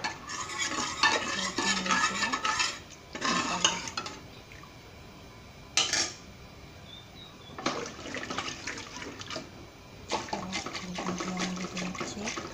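A metal ladle scraping and clinking against the inside of an aluminium pressure cooker as boiled lentils are stirred, in several bursts of one to three seconds, with a single sharp clink about six seconds in. Near the end a wooden dal masher churns the wet lentils.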